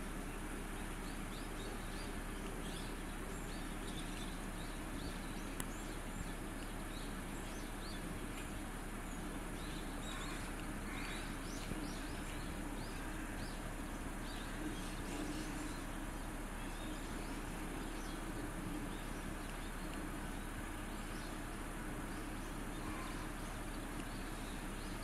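Steady outdoor background hiss with many faint, short, high chirps of small birds scattered irregularly through it.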